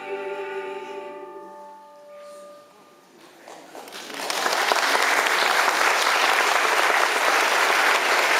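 A choir's final held chord dies away over the first two seconds or so, and after a short hush an audience breaks into loud applause about four seconds in, which keeps going.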